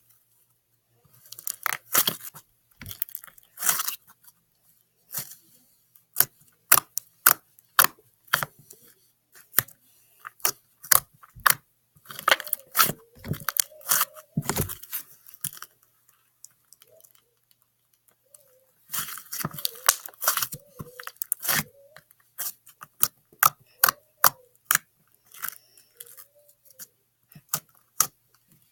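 Slime being squeezed and played with, giving sharp sticky clicks and pops. They come in dense crackling runs about 1–4 s, 12–15 s and 19–22 s in, with single pops scattered between.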